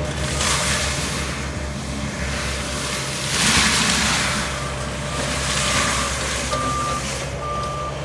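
Diesel engine of Bobcat land-clearing machinery running steadily, with surges of rushing, grinding noise, the loudest about three and a half seconds in, as brush is worked. A backup alarm beeps repeatedly near the end.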